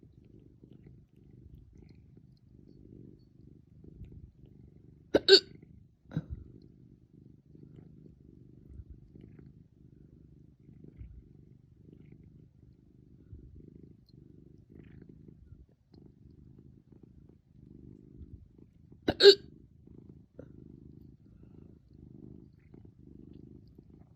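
Person hiccuping hard: two loud, sudden hiccups about 5 s and 19 s in, with a fainter one a second after the first, over a steady low rumble.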